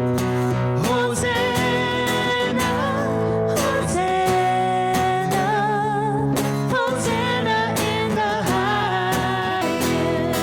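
A worship song performed live: a singing voice with vibrato over strummed acoustic guitar.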